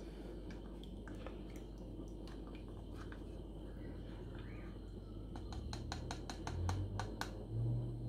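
A metal teaspoon scraping and tapping inside the filter cup of a Thomson Scenium portable coffee maker, moving the coffee grounds off the mesh screen so the coffee can drain through. Light scattered clicks, then a quick run of about five taps a second for roughly two seconds, with a couple of dull bumps near the end.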